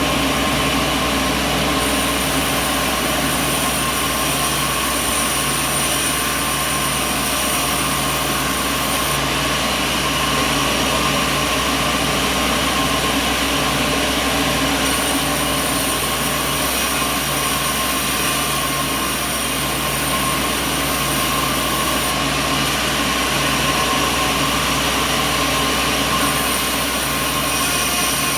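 Sawmill machinery running steadily: a continuous mechanical hum and drone, with a high whine that comes in and drops out several times.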